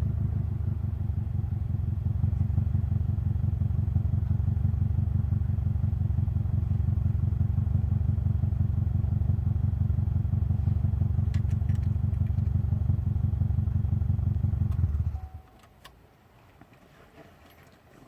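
Subaru Legacy BE5 Blitzen RSK's twin-turbo flat-four running steadily at idle through an Eifel Prova muffler, with an even low, pulsing exhaust note. About fifteen seconds in the engine is switched off and the sound cuts out suddenly, leaving a few faint clicks.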